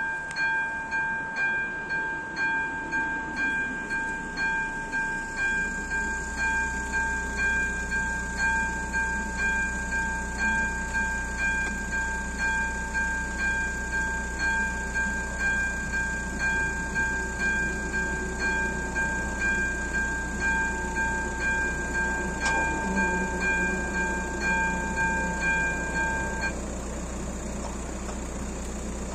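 Electronic warning bell of a level crossing ringing in steady repeated two-tone strokes, a little over one a second. It stops suddenly near the end, with the barriers down. A low steady hum runs underneath from a few seconds in.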